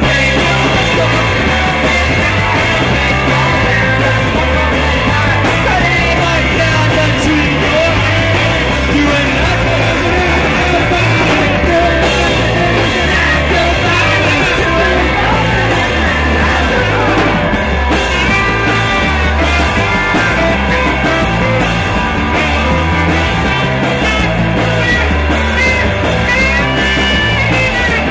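Live rock band playing a loud, steady number on electric guitar, saxophone and drum kit, with a voice singing over it.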